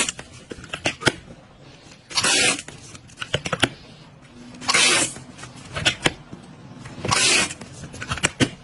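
Small balloons being inflated with a balloon inflator nozzle: short hisses of air about every two and a half seconds, with small clicks and the rubbing of latex and tool between them.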